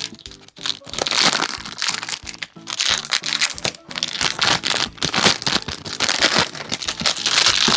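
Background music with dense crinkling and crackling of cube packaging being opened by hand.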